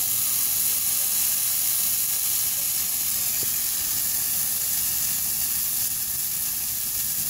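Dry pine tree flaring up in a tall column of flame, burning with a steady hiss.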